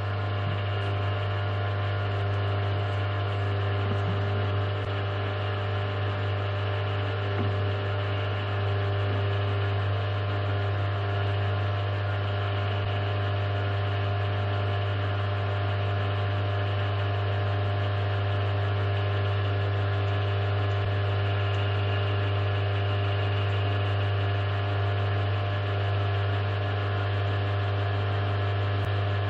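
Milling machine running steadily with its spindle turning a coaxial centering indicator; the motor gives a strong, even hum that does not change.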